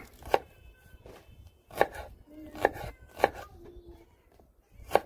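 Kitchen knife slicing onion on a wooden cutting board: about half a dozen sharp knife strikes on the board, unevenly spaced roughly a second apart.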